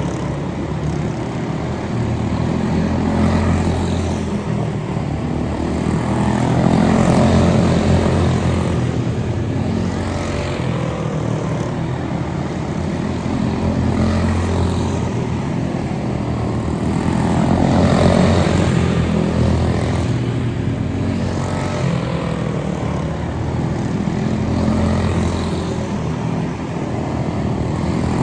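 Propeller-driven radio-controlled model airplane flying, its motor running steadily and growing louder and fainter as it passes, loudest about 7 and 18 seconds in.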